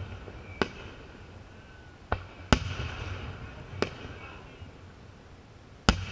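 Aerial fireworks shells bursting in the sky: five sharp bangs at uneven gaps, the loudest about two and a half seconds in and near the end.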